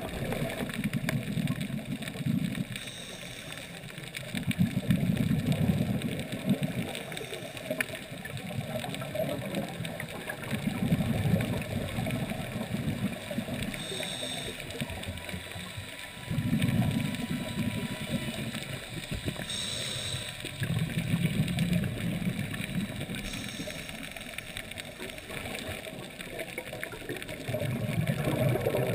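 Scuba diver's exhaled bubbles from the regulator, heard underwater through a GoPro dive housing: a low bubbling rush with each breath, about every five to six seconds, with quieter stretches between.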